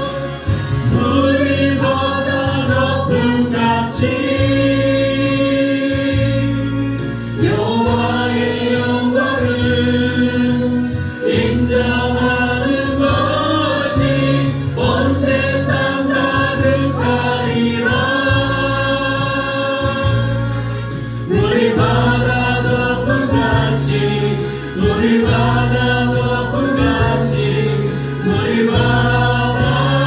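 Korean worship team of men and women singing a praise song together into microphones, over instrumental accompaniment with sustained bass notes that change every couple of seconds.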